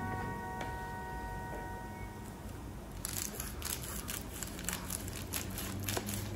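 The last notes of a strummed acoustic guitar ring out and fade. From about three seconds in, a run of small irregular clicks and crackles follows, like crinkling or handling something close to the microphone.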